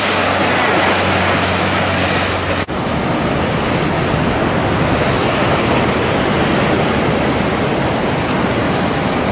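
Rushing water and spray over a steady hum from a motorboat's outboard motor. About two and a half seconds in there is a sudden cut, and after it waves and wind buffet the microphone.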